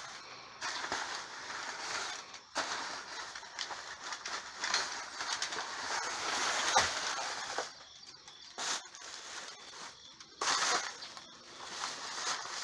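Plastic bags and packaging rustling and crinkling as trash is rummaged through by hand, in irregular bursts with sharp crackles and a few short pauses.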